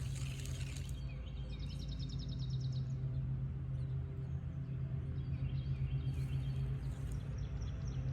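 Songbirds chirping, with a rapid trill of quick repeated high notes about two seconds in and more chirps near the end, over a steady low hum.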